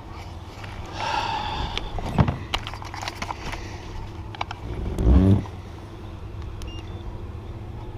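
Wind rumbling on the microphone, with scattered clicks and knocks of fishing gear being handled in a kayak and a brief loud low sound about five seconds in.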